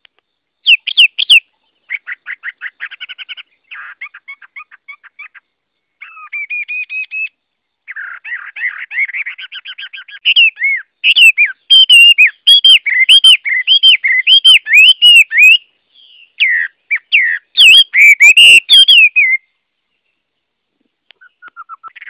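Chinese hwamei (Garrulax canorus) singing a long, varied song. It opens with quieter rapid trills and slurred whistles, then about halfway through moves to loud, repeated looping whistled notes. It pauses a couple of seconds before the end, and soft notes start again at the very end.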